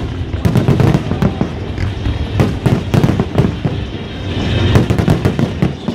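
Fireworks display: aerial shells bursting overhead in a rapid, irregular string of bangs and crackles, several a second.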